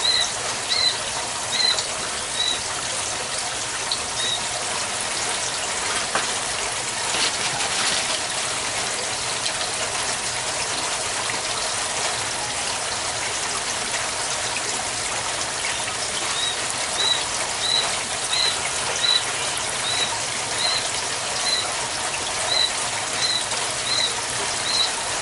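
Water running steadily out of the aquaponics return pipe into a lava-rock grow bed. A bird chirps short high notes about once a second at the start, then again through the last third.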